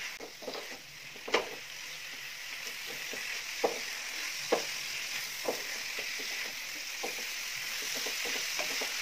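Chicken pieces sizzling as they sear in masala in a non-stick pan over a high gas flame, while a spatula stirs and scrapes them. The spatula gives short sharp clicks about once a second over a steady frying hiss that grows a little louder as it goes.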